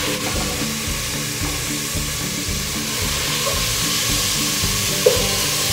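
Chicken pieces sizzling as they fry in hot oil with sautéed garlic, onion and ginger in a pot, a steady hiss that grows slightly stronger partway through.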